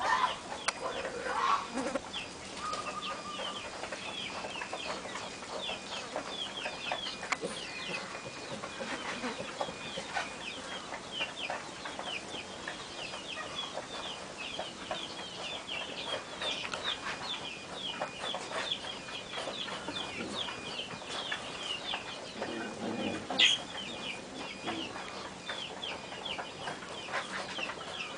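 Rapid, high-pitched chirping or peeping calls, several a second, keep going without a break. One brief sharp sound stands out about 23 seconds in.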